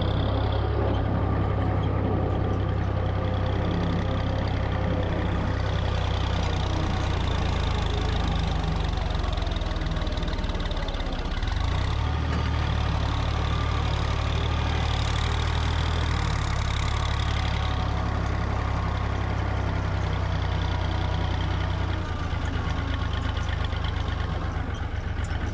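Tractor diesel engine running steadily at low revs. It dips briefly about eleven seconds in, and its note changes a few seconds before the end.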